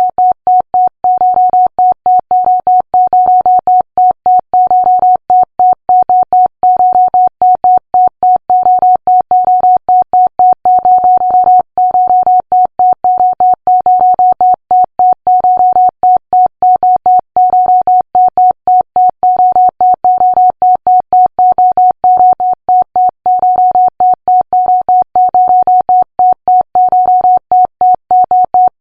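Electronic computer beeping: a single steady-pitched digital tone pulsed on and off in rapid, irregular short and longer beeps, several a second.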